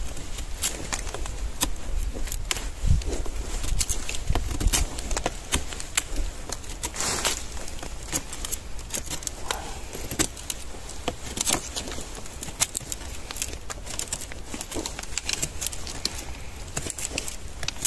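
Close handling noises: an irregular run of clicks, crinkles and light clinks, with a few low thumps in the first few seconds.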